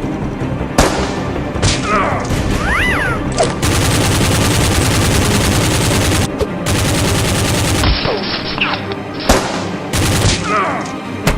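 Gunfire sound effects over background music: scattered single shots, then a sustained rapid burst of fire lasting about four seconds, then more single shots, with a few whizzing glides between them.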